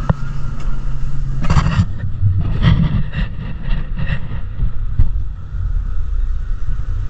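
Gravity-powered mountain coaster sled running along its tubular steel track: a steady low rumble of the wheels, with a run of quick clacks, about four a second, for a couple of seconds around the middle, and a single click a little later.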